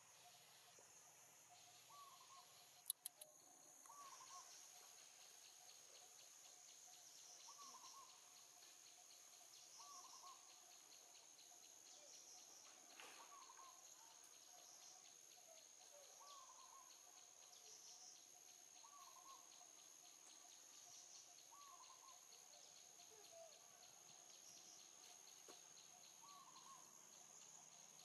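Faint outdoor ambience: a steady high-pitched insect drone, with a bird repeating a short call every second or two. A single sharp click comes about three seconds in.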